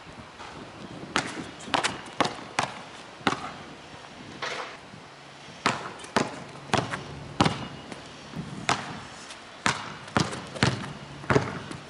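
Basketball dribbled hard on asphalt during a between-the-legs crossover drill: about fifteen sharp bounces at an uneven pace.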